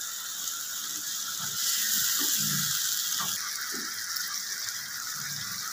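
Boneless chicken cooking in hot oil and a little water in a pan: a steady sizzling hiss, a little louder for a couple of seconds in the middle, as the water cooks off.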